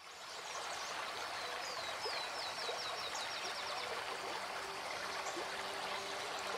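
Shallow stream running over stones, a steady rush of water that fades in at the start. A bird trills a quick run of high, repeated notes from about a second and a half in. Faint sustained music notes come in near the end.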